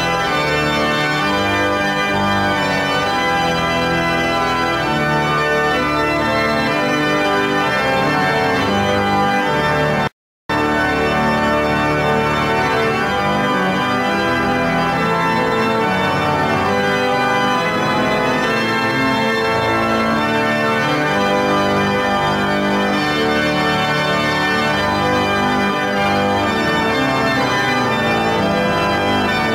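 Church pipe organ being improvised on: full sustained chords over low bass notes, shifting from chord to chord. The sound cuts out completely for a split second about ten seconds in.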